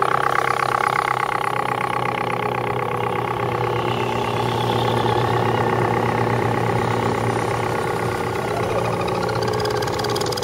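Several scale RC crawler trucks running together, their electric motors and geared drivetrains giving a steady whine.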